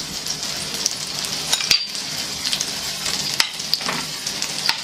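Egg-and-cornflour-coated prawns shallow-frying in a little hot oil in a frying pan: a steady sizzle with scattered pops and clicks. A spoon turns the prawns in the pan near the end.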